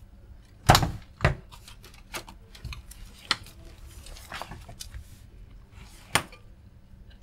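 Irregular sharp knocks and clicks of small objects being handled and put down on a workbench, the two loudest close together about a second in.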